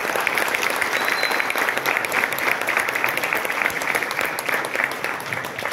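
A room of people applauding: steady, dense hand clapping that begins to thin out near the end.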